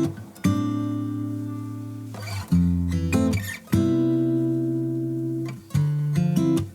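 Background music: acoustic guitar playing sustained strummed chords between sung lines of a pop song.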